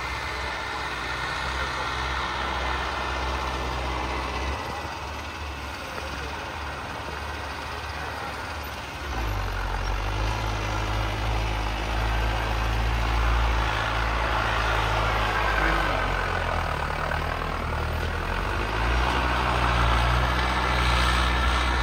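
Mahindra Arjun Novo 605 tractor's 57 hp turbo diesel engine, with a modified diesel pump, running steadily as it works a field with a tillage implement. The low engine drone grows louder about nine seconds in, with a higher whine above it that rises and falls.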